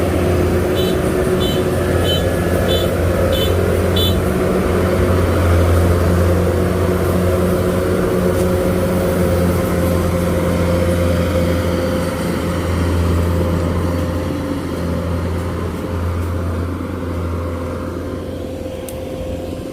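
Engine of a tracked rice-field machine running steadily with a low drone. Six short, high beeps sound evenly spaced in the first four seconds.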